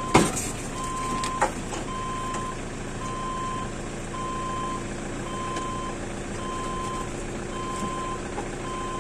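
A reversing alarm beeping, one steady high tone about once a second. A sharp knock sounds just after the start and a lighter one a little over a second in.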